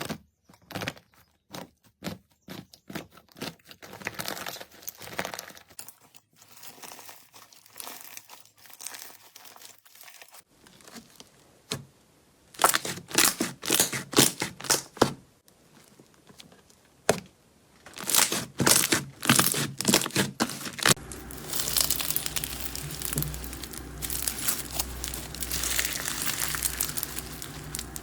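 Slime being squeezed and pressed by hand, giving many short crackling clicks and pops. About three-quarters of the way in it gives way to a denser, steady crinkling texture with a low hum beneath.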